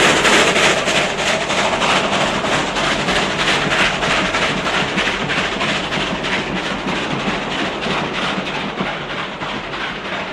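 South Australian Railways 500-class 4-8-4 steam locomotive and its train running past, a rapid steady beat of exhaust and wheels over the rails that slowly gets quieter.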